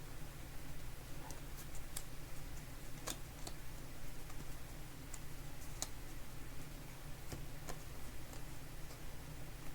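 Light, irregular clicks and ticks of trading cards being handled and flipped, over a steady low hum.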